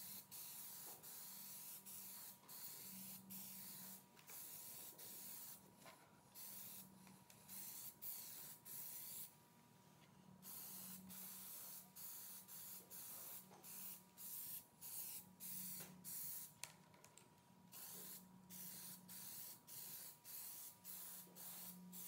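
Aerosol can of Plasti Dip rubber coating spraying in many short hissing bursts, stopping and starting about once a second, played at double speed.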